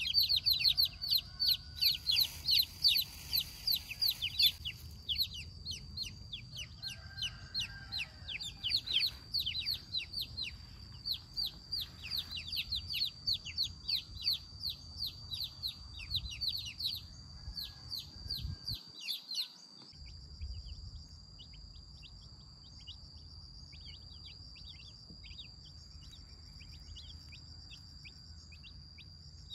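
A flock of young chicks peeping: many quick, high peeps that slide downward, densest and loudest in the first few seconds, then thinning out and growing fainter after a short break near twenty seconds.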